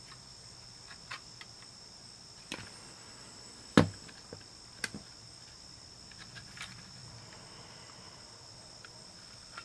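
Light plastic clicks and knocks from the case and circuit board of a Panasonic RQ-V51 portable cassette player being handled and pried apart, with one sharper knock about four seconds in. A faint steady high-pitched tone runs underneath.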